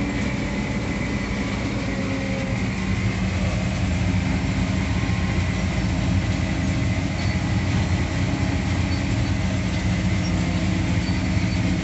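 Sugarcane harvester's diesel engine running steadily under load, with the cutting and elevator machinery going, heard from inside the cab as it cuts cane and discharges chopped billets into the wagon.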